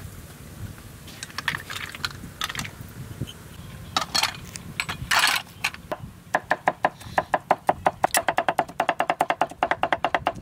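Cleaver chopping snail meat on a wooden cutting board. A few scattered knocks at first, then from about six seconds in rapid, even chopping at about eight strokes a second, each stroke knocking and ringing off the board.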